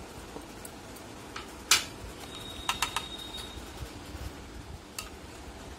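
Utensils knocking against a stainless steel bowl while spice powders are tipped into curd: one loud knock a little under two seconds in, then a quick cluster of taps about a second later with a brief metallic ring, and a lighter tap near the end.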